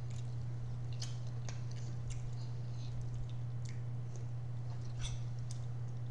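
Close-up chewing and wet mouth smacks of people eating, with scattered short clicks, over a steady low hum.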